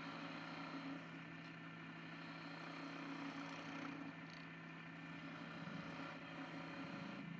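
Wood lathe's electric motor running with a steady hum. Near the end its pitch steps slightly higher.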